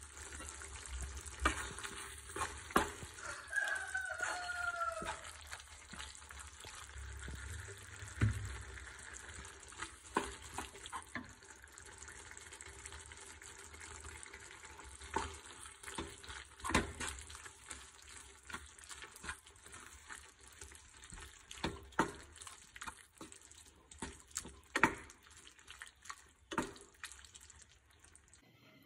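Wooden spatula stirring squid roast in a non-stick pan: scattered knocks and scrapes against the pan over a faint sizzle of the simmering masala. A brief falling squeak about four seconds in.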